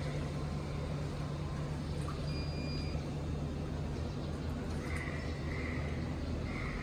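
Steady low electric hum with one short high beep a little over two seconds in, typical of an electric tailgate's warning beep.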